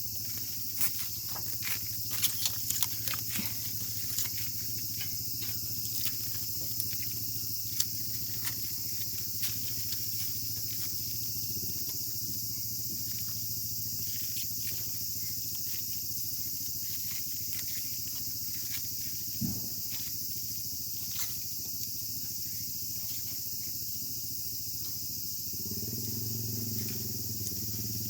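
Steady high chorus of insects trilling, with scattered light clicks and crackles of protective film being peeled off the parts of a new fire pit. A low rumble comes in near the end.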